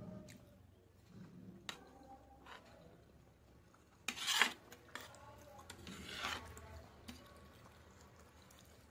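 Metal spoon scraping across a plate to gather sauced macaroni: two loud scrapes, about four and six seconds in, with a few small cutlery clicks between.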